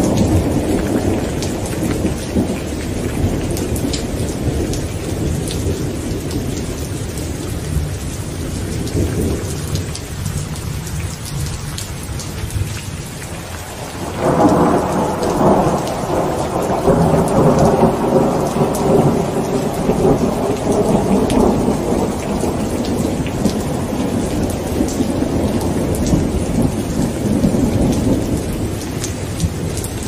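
Steady rain falling on a hard wet surface, with scattered drop ticks, under rolling thunder. A new peal of thunder breaks in suddenly about halfway through and rumbles for several seconds before slowly fading.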